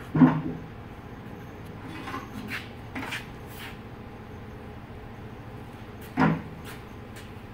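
Hand truck and a stack of metal test weights knocking on a metal floor-scale platform: a loud clunk near the start, a few lighter knocks about two to three and a half seconds in, and another loud clunk about six seconds in.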